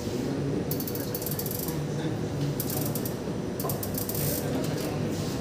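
Three short bursts of rapid ratchet-like mechanical clicking over a steady low hum.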